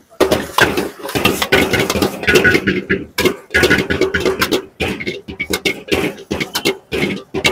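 Metal ladle scraping and knocking against a wok as vegetable noodles are stir-fried and tossed: a fast, uneven run of clanks and scrapes.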